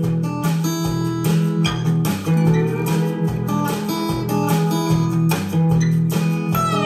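Recorded guitar music with a solo, played back through homemade open-box loudspeakers, over a strong bass line of held low notes.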